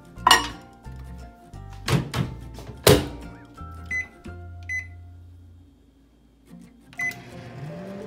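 Panasonic Genius inverter microwave oven: three loud clunks of the door being handled and shut, two short keypad beeps, then a beep from the Start button near the end as the oven starts running with a steady whir.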